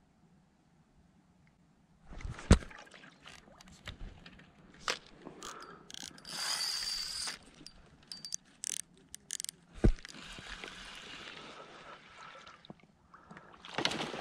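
Fishing rod and reel being handled while a fish is struck and reeled in: a sharp knock about two and a half seconds in, then scattered clicks and rattles and stretches of steady mechanical whirring from the reel.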